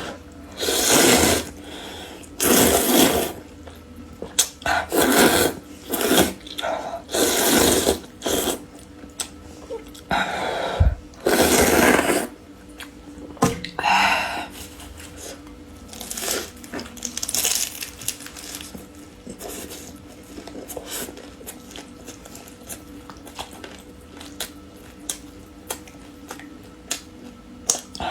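Close-miked eating: a series of loud noodle slurps in the first half, then chewing with many small wet clicks and smacks.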